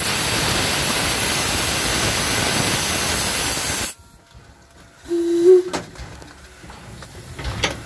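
Steam hissing steadily and loudly from the 1875 steam locomotive INYO, cutting off abruptly about four seconds in. About a second later comes a short, steady low tone, followed by a few faint clicks.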